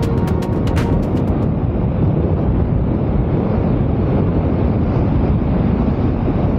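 Wind rushing over the camera microphone on a Zero SR/F electric motorcycle riding at road speed: a steady low rush with no engine note. Music cuts off about a second in.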